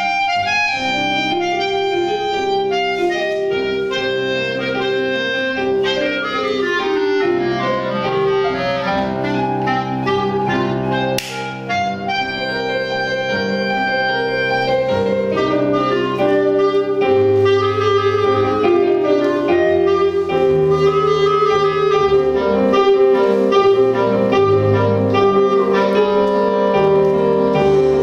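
Clarinet playing a lively melody of quick running notes and held tones, with piano accompaniment underneath.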